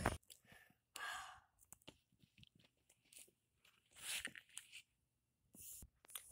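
Quiet, intermittent rustling and soft clicks of dolls and their fabric clothes being handled close to the microphone, in a few short noisy bursts with pauses between.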